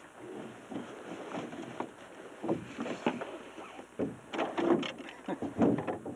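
Knocks, thumps and scraping in a boat as a big, heavy northern pike is handled and moved, slipping and sliding as it goes. The noises are irregular, getting busier and louder in the second half.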